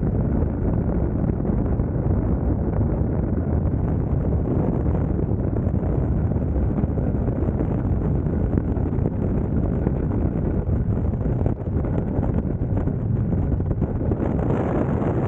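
Freefall airflow rushing over a helmet-mounted camera's microphone: a loud, steady, low buffeting wind noise. It turns a little hissier near the end.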